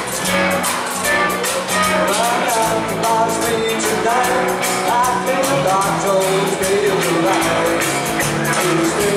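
Live country band playing a rock-and-roll line-dance number on electric guitars, bass guitar and drum kit, with a lead vocal.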